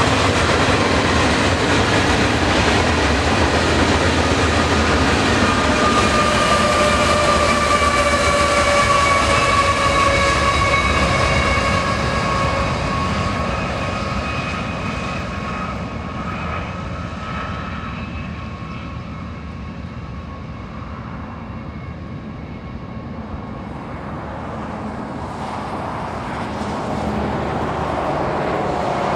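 Freight train passing close by: a steady rolling roar from the cars, with faint squealing tones that slowly fall in pitch. The roar dies down past the middle and builds again near the end as a locomotive approaches.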